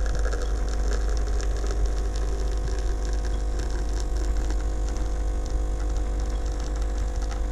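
DeLonghi ECP35.31 espresso machine's vibratory pump humming steadily while it pulls a single espresso shot.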